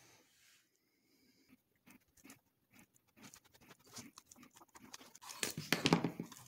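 Leather knife sheath being handled and flexed by hand: soft scattered rustles and creaks, then a short burst of brisk rubbing against the leather a little after five seconds in.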